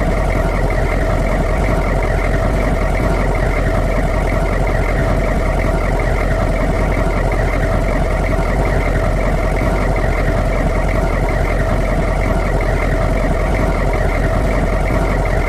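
Humvee's diesel V8 engine idling steadily, an even low rumble that does not change.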